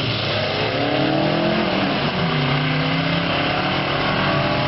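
Drag-racing launch at full throttle: a turbocharged 1978 Ford Pinto and a pickup truck accelerating off the start line. The engine pitch climbs, drops sharply at a gear shift about two seconds in, then climbs again as they pull away.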